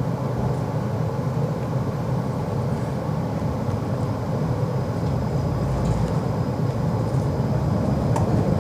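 Tram running, heard from inside the car: a steady, continuous low rumble of the wheels and drive.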